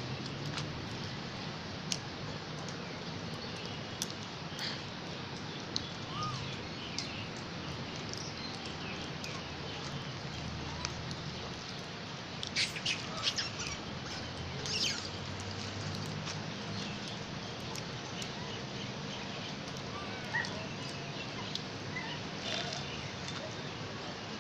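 Steady outdoor background noise with scattered faint clicks and a few short, high chirps or squeaks, a cluster of them a little past halfway.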